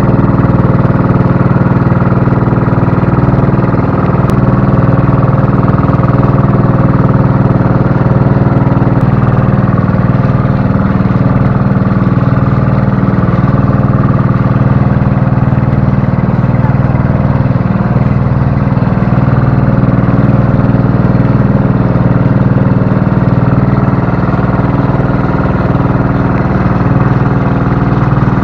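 Motorized bangka (bamboo-outrigger boat) engine running steadily underway, a loud, even, low-pitched engine note.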